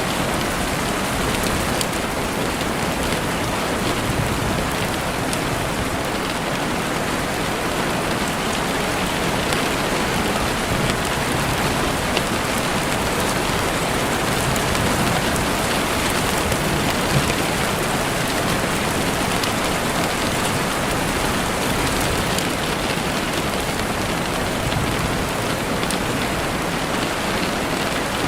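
Steady rain falling on leaves and ground, an even hiss with a couple of faint sharp ticks.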